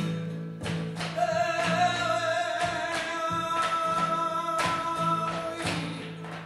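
Flamenco bulerías music: a singer holds a long, slightly wavering note over guitar, with sharp percussive hits cutting through throughout.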